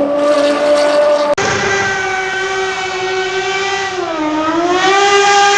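Racing car engine held at high revs, a steady high-pitched wail. About a second in it cuts to another racing engine whose pitch sags briefly partway through and then climbs back.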